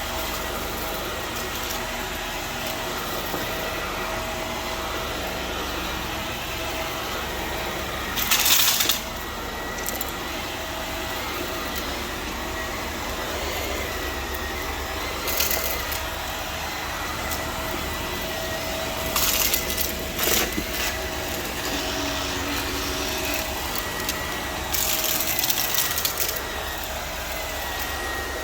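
Vacuum cleaner running steadily on carpet with a constant motor whine, with four brief louder hissing rushes as it sucks harder or picks up debris.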